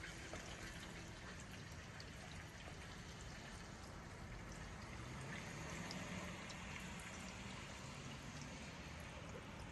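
Rain in a minor storm: a steady wash of falling and running water, with scattered drops ticking through it.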